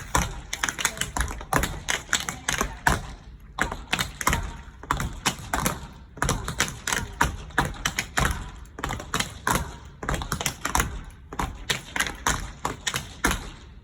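Metal taps on dance shoes striking a hard floor in quick, rhythmic footwork, with brief pauses about three and a half and six seconds in.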